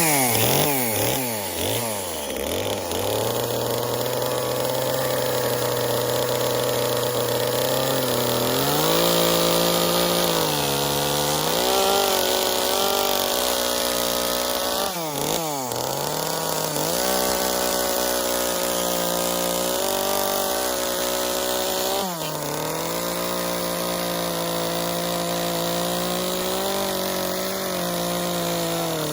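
Two-stroke chainsaw running: it idles low for several seconds, then speeds up to high throttle, its pitch wavering and dropping sharply twice as it cuts into wood.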